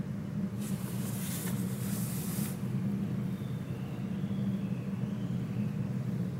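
A steady low hum, with a burst of hissing from about half a second in that lasts about two seconds.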